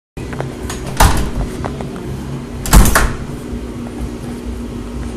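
Two loud thumps at a door, about a second in and near three seconds, with smaller clicks and rattles between, over a steady low hum.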